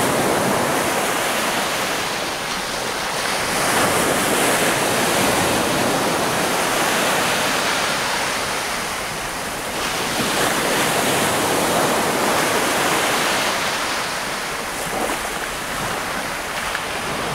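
Baltic Sea surf washing onto the beach, a steady rush that swells and eases every few seconds, with wind on the microphone.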